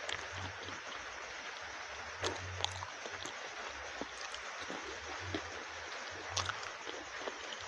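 Close-miked eating sounds: wet mouth clicks and smacks from chewing masala-sauced chicken wings and chips, scattered every second or so over a steady hiss.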